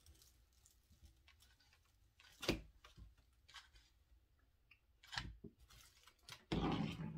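Dry grapevine wreath forms being handled, giving scattered crackles and rustles with a few sharp knocks, the loudest near the end.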